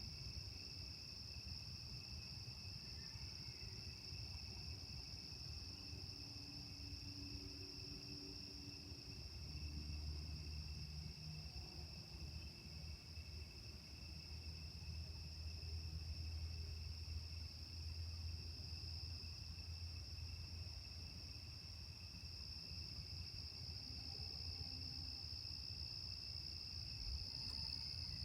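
Steady chorus of night insects, two constant high trills, over a low hum that swells for about ten seconds in the middle. About three seconds in comes a faint, unidentified animal call, the unusual pre-dawn call it was recorded for.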